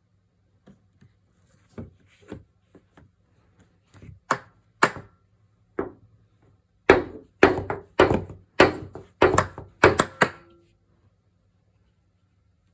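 A small red ball banged against a windowsill: a few light scattered knocks, then a quick run of about eight loud knocks, roughly two a second, that stop about ten and a half seconds in.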